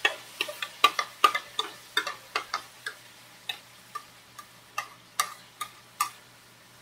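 Metal ladle clinking and scraping against a bowl over a wok as soy sauce is tipped out: a quick run of sharp ticks, about four a second at first, thinning to single clinks later on.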